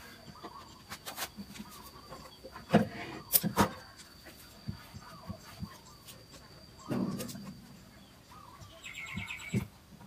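Wooden knocks and a duller thump as panels of a wooden speaker cabinet are handled and fitted, with a short run of quick bird chirps near the end and a faint steady high tone underneath.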